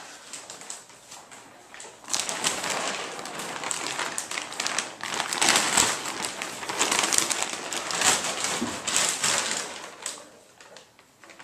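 Thin plastic wrapping of a memory foam mattress crinkling and rustling as it is cut open and pulled off the foam, starting about two seconds in and dying down near the end.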